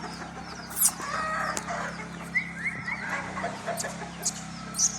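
Chickens clucking, a run of short calls in the first three seconds including a quick series of rising notes, with a few sharp clicks.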